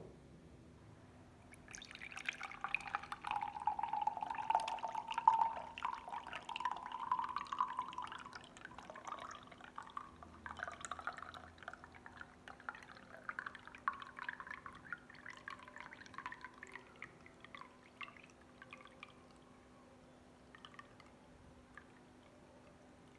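Pomegranate juice being poured into a glass tumbler. A splashing stream starts about two seconds in, and its pitch rises as the glass fills. Near the end it thins to scattered drips and trickles.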